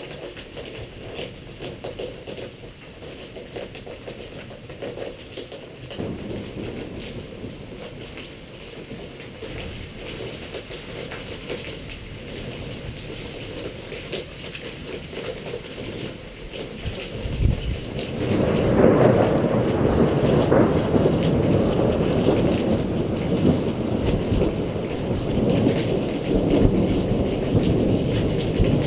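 Thunderstorm: rain and rumbling thunder, quiet at first, then swelling sharply about two-thirds of the way through and staying loud.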